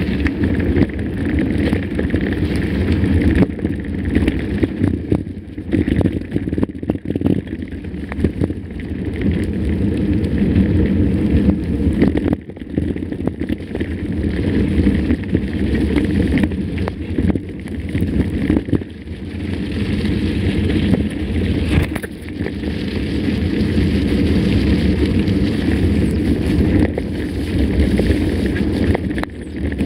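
Mountain bike riding over a rough trail: wind buffeting the microphone with constant rattling and knocking from the bike.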